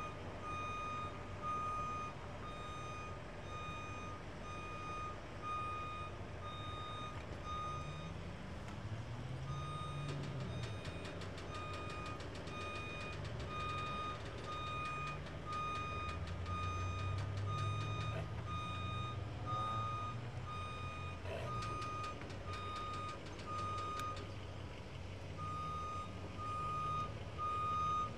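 A lift truck's motion alarm beeps in a steady run, breaking off briefly twice, over the truck's engine running underneath, its pitch rising and falling as the basket is moved.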